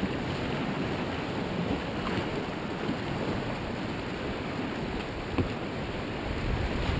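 Whitewater rapids of a rocky brook rushing steadily around a kayak, with a single sharp knock about five seconds in.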